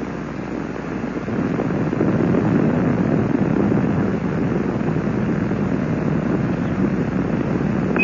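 Space Shuttle Columbia's solid rocket boosters and main engines rumbling during ascent, heard from the ground as a steady, noisy rumble that grows louder about a second and a half in.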